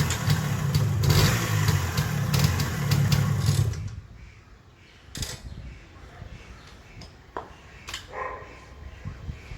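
Enfield Fury's single-cylinder two-stroke engine running briefly after a start, then dying abruptly about four seconds in. Scattered light clicks and knocks follow.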